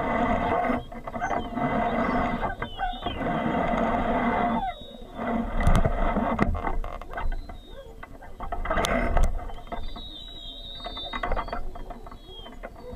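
Fishing reel being cranked, its gears and ratchet clicking in a steady run, then in louder uneven spells.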